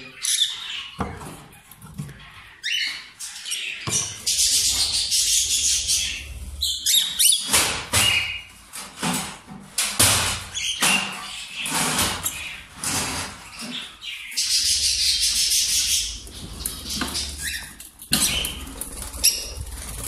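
Agitated small parrots in a breeding cage, a pair shown as angry, calling and flapping their wings, with many sharp clicks and knocks. Two longer stretches of rushing noise come about four seconds in and again near fifteen seconds.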